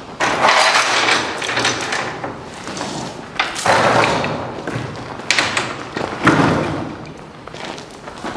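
Heavy securement chains being handled over a steel coil on a flatbed trailer: several bursts of rattling with thumps and knocks against the coil and trailer deck.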